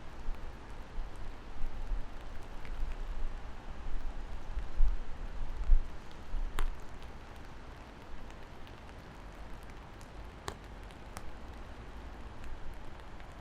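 Steady rain hiss with a few sharp, separate drops striking a hard surface in the second half. A gusty low rumble sits under the rain for roughly the first half.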